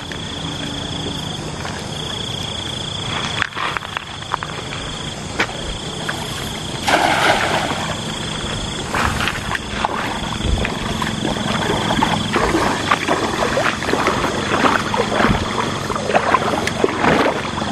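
A weighted cast net hitting a shallow river about seven seconds in, a short rushing splash. Before and after it comes the irregular sloshing and splashing of someone wading in the water.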